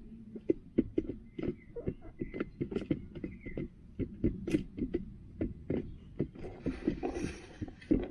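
Hens pecking close to the camera: an irregular run of sharp taps and knocks, a few a second, with a scuffle of rustling about seven seconds in as a hen moves up to the lens.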